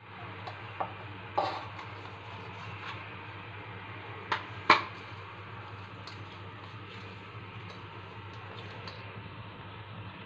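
Plastic plate lifted off a ceramic plate and set down on the counter, with a few sharp knocks of plate on plate and counter, the loudest near the middle, followed by fainter handling ticks; a steady low hum runs underneath.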